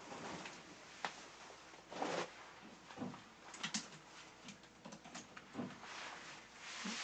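Rustling swishes of a shiny PVC suit worn over a sauna suit as the wearer moves, with a few light clicks of clothes hangers on a rack.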